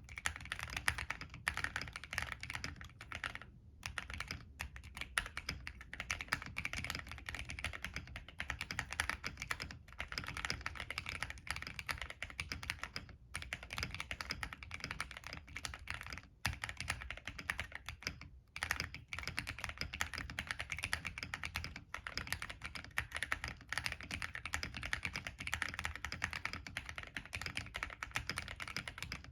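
Continuous fast typing on a plateless mechanical keyboard with NK Cream linear switches and PBT Cherry-profile keycaps, with a few brief pauses.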